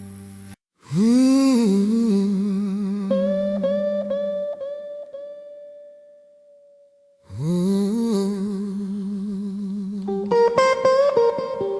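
Instrumental blues guitar intro. After a brief gap, a guitar note bends up and rings with a wide vibrato, followed by a few shorter notes, and it fades to near silence. A second bent, wavering note comes in, and rhythmic strummed chords join near the end.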